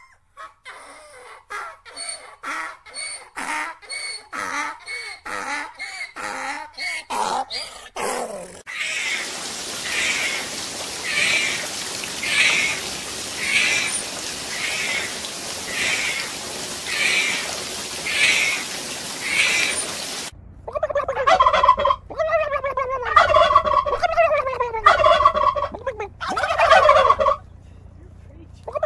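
For the first eight seconds, a donkey braying in short harsh calls that come faster and faster. Then comes a steady underwater hiss with a dolphin's high call repeating about once a second. From about twenty seconds in, wild turkey toms gobble over and over in loud warbling calls, the loudest part.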